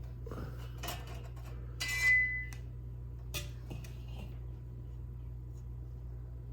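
Metal parts of a nickel-plated camping lantern being handled: a few light clicks, then a loud ringing metallic clink about two seconds in, and a couple of lighter taps after it, over a steady low hum.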